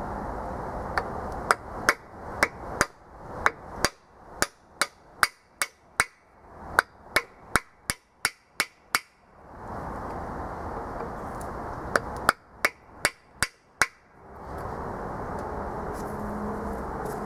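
Hammer blows on a freeze plug driver, driving an expansion plug into a core hole in a small-block Chevy 350 engine block: about eighteen sharp strikes at roughly two a second, a pause of a few seconds, then six more.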